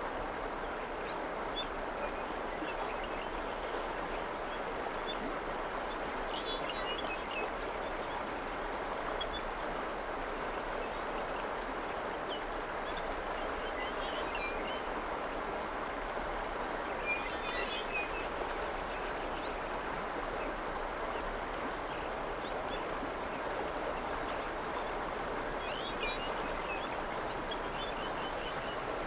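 Steady rush of running water, with a few brief bird chirps now and then.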